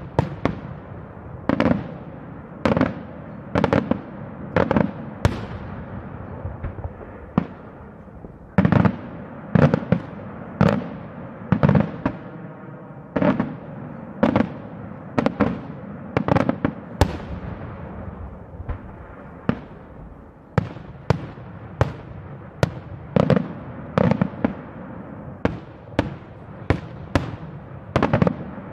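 Daytime fireworks shells bursting in the air: a steady run of loud bangs, about one a second, each trailing off in an echo.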